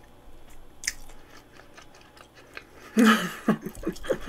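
Soft chewing of a fried croquette, with small mouth clicks and one sharper click about a second in. About three seconds in, a woman's voice breaks in loudly.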